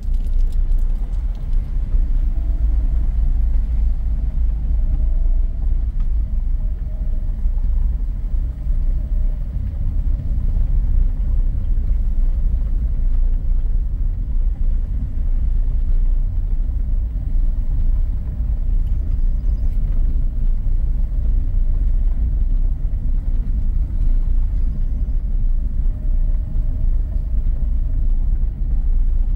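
Car rolling slowly over a cobblestone street: a steady low rumble from the tyres and running gear.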